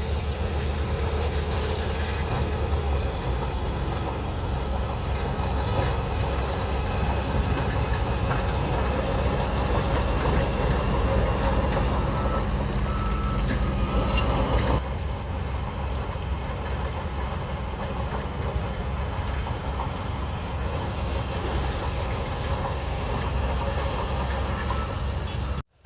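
Shantui DH17C3 bulldozer working: its diesel engine running steadily under load with metallic running-gear noise from the steel tracks, and thin high tones now and then. The sound eases a little about halfway through and cuts out briefly at the very end.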